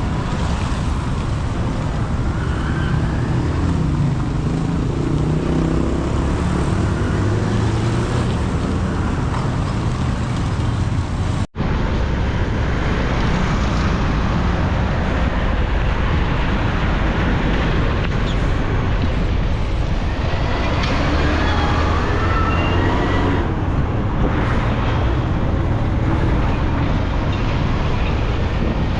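Motorcycle taxi (boda boda) engine running through road traffic, with the steady rumble of passing vehicles and a few faint rising engine tones. The sound drops out briefly at a cut about eleven seconds in.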